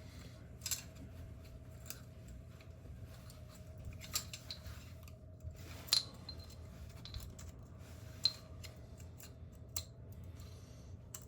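Sharp, irregular clicks and snips of small hand tools and metal parts being handled while a track light fixture is taken apart, about eight over the stretch, over a steady low hum.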